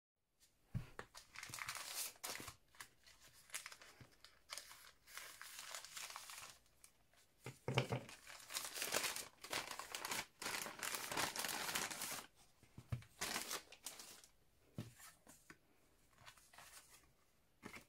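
Plastic mailer bag being torn open and handled, with crinkling plastic that is loudest in the middle stretch. Near the end, quieter rustling as paper cards from inside are handled.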